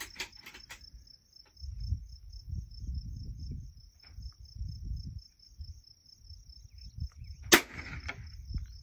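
A single sharp crack from a Bergara .22 LR rifle firing, about seven and a half seconds in, over the steady, evenly pulsing chirp of insects in the grass.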